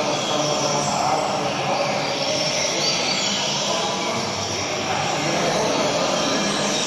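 Steady rushing noise, with faint, short, high whistled phrases of a double-collared seedeater (coleiro) song showing through it.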